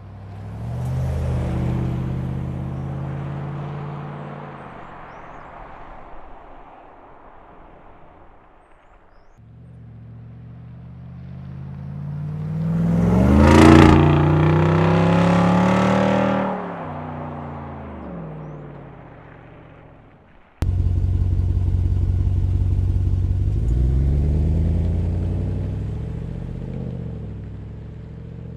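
Jeep Wrangler Rubicon 392's 6.4-litre HEMI V8 exhaust in three separate recordings. First it swells and fades. Then it accelerates past at its loudest, the pitch falling as it goes away. Then after an abrupt cut it runs loud and steady before tapering off.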